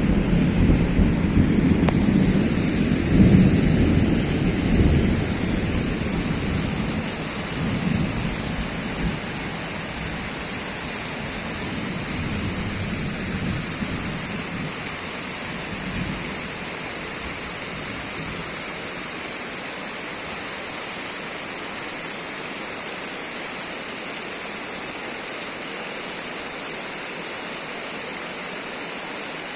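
Heavy rain pouring steadily, with a low rumble of thunder through the first several seconds that dies away.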